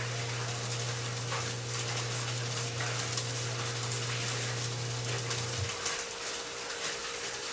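Ceiling fan running: a steady rush of air with faint flicks, over a steady low hum that stops about five and a half seconds in.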